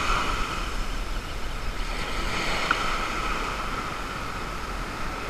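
Small ocean surf breaking and washing up a sandy beach in a steady wash, with some wind noise on the microphone.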